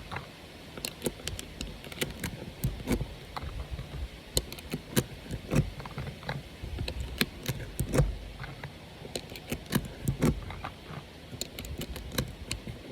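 UpLULA magazine loader pressing 9mm rounds into a Glock 19 magazine, a series of irregular clicks and snaps as each cartridge is pushed down into place.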